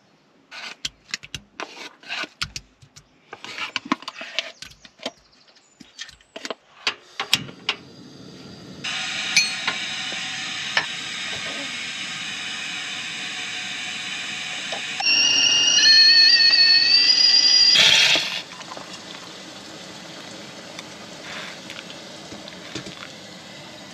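A spoon scrapes and clinks against ceramic bowls. Then comes a steady hiss as a stovetop whistling kettle heats on a portable gas burner. About fifteen seconds in the kettle whistles at the boil for about three seconds, a wavering whistle that is the loudest sound, and it cuts off suddenly, leaving a softer hiss.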